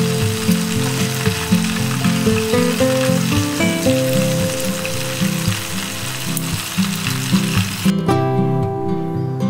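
Stuffed squid deep-frying in hot oil, a steady sizzle that cuts off suddenly about eight seconds in. Background guitar music plays throughout.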